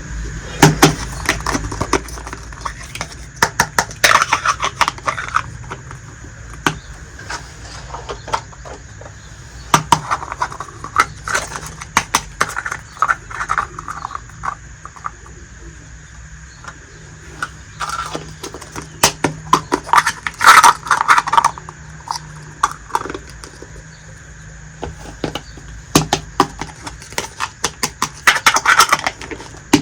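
Miniature toy kitchen pieces being handled, with light clicks and clatters coming in irregular clusters.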